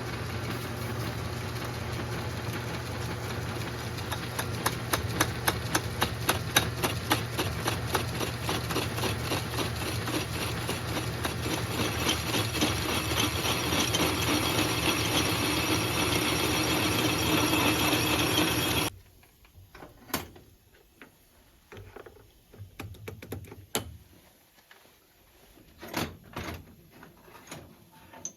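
1950s Sears metal lathe running, a steady motor hum with a fast rhythmic clatter, switched off and stopping abruptly about nineteen seconds in. After it come scattered light clicks and taps.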